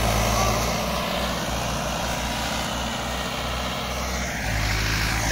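Mahindra 595 DI Turbo tractor's turbocharged diesel engine running steadily under load, pulling an eleven-tine tiller through deep tillage. It grows louder about four and a half seconds in.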